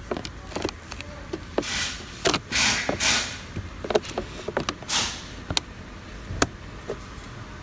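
Plastic cabin air filter cover being fitted back into place by hand: short scraping slides of plastic on plastic and several sharp clicks as its tabs snap in.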